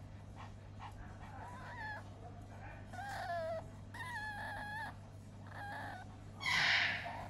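A few short, wavering, whine-like animal calls, one falling in pitch, then a brief louder hissing burst near the end, over a steady low hum.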